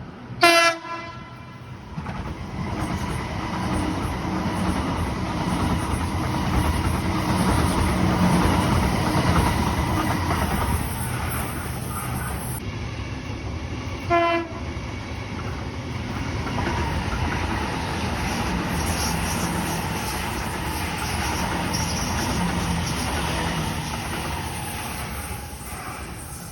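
Sydney train sounding two short horn blasts, one just after the start and another about fourteen seconds in, over the steady rumble and wheel clatter of the train running past on the rails, which eases off near the end.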